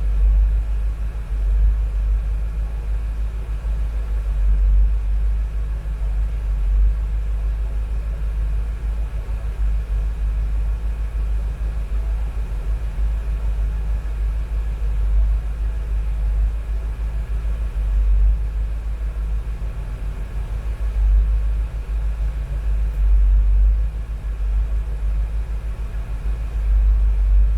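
1972 Chevy Nova engine idling steadily with the air conditioning running: a constant low rumble with a faint steady hum above it.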